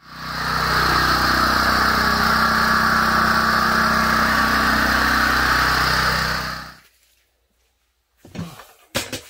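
Portable generator engine running at a steady, even speed, then cutting off suddenly about seven seconds in. A few short knocks follow near the end.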